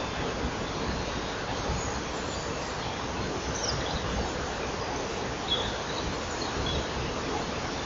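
A steady background hiss with a few faint, short songbird notes of the pre-dawn chorus: one falling chirp about halfway through and a couple more short chirps later on.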